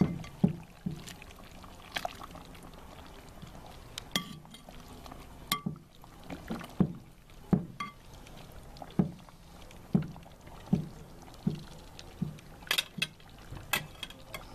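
Metal ladle knocking and scraping against a cast-iron potjie pot while scooping and stirring a stew, with liquid slopping. A series of short clunks and clinks, many about a second apart, with a few sharper clinks near the end.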